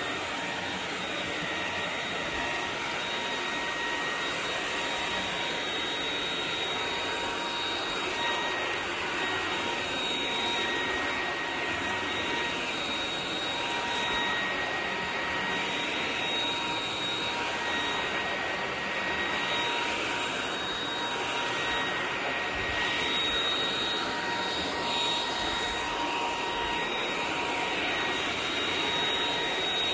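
EUREKA RapidClean Pro cordless stick vacuum running steadily: a high, constant motor whine over the rush of air.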